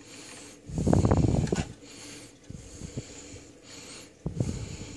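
Heavy breaths close to the microphone, with a loud exhale about a second in and another starting near the end, and a few small clicks in between.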